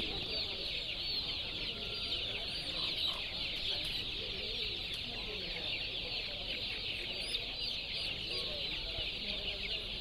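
Many black Kadaknath chickens crowded in stacked plastic crates, calling all at once: a dense, steady chatter of overlapping high cheeps and clucks.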